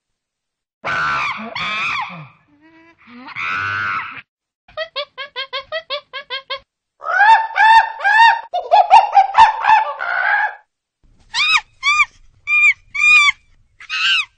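A bird calling: a quick run of short, evenly spaced notes, then a series of louder arching calls, and a few separate calls near the end.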